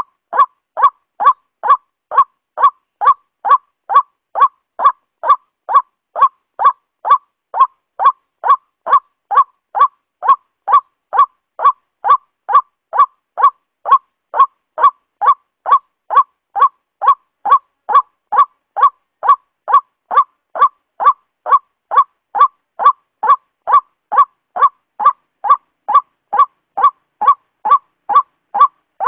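Waterhen calling: one short, clipped call repeated over and over at an even pace, about two a second, without a break.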